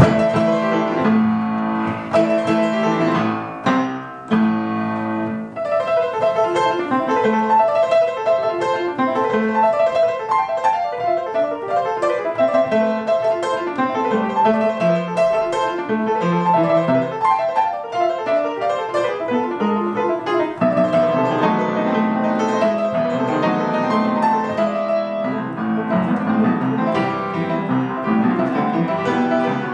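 Piano music: a piece of many quick notes and chords, played without a break.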